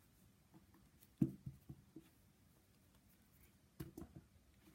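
Soft handling noises: a few short knocks and rustles, a cluster about a second in and another near the end, in a quiet small room.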